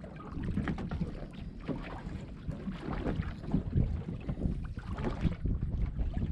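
Wind buffeting the microphone over choppy water slapping irregularly against the hull of a small boat on a lumpy sea.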